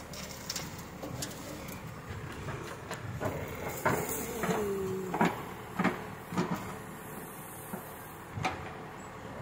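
Caterpillar backhoe loader's diesel engine running steadily while the bucket dumps its load and the boom swings back, with a brief whine about four seconds in and several sharp clanks from the bucket and boom.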